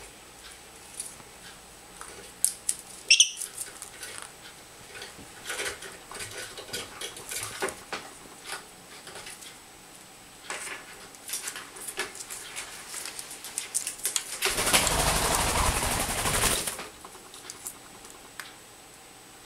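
Senegal parrot pulling up a string on a wicker ring: scattered small clicks and rustles of beak, feet and string on the wicker. There is a brief high squeak about three seconds in and a louder rush of noise lasting about two seconds near the end.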